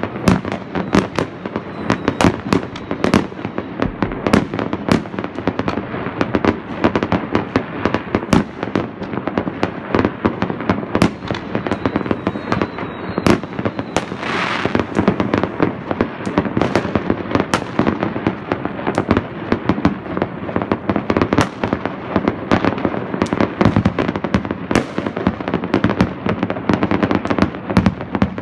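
Fireworks going off all around: a dense, unbroken barrage of aerial shell and rocket bangs mixed with firecracker crackle, several reports a second. A brief hiss comes about halfway through.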